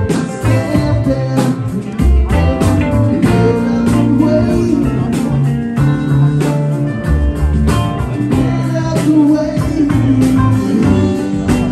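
Rock band playing live: electric guitars, bass guitar and drum kit together, with a steady drum beat.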